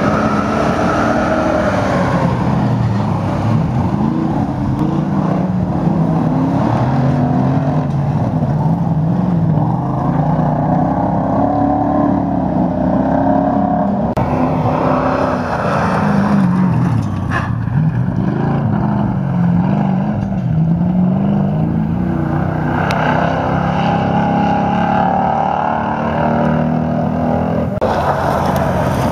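GAZ-53 trucks' V8 petrol engines revving hard under racing load on a dirt autocross track. The pitch climbs and drops over and over as the drivers go through the gears and lift off.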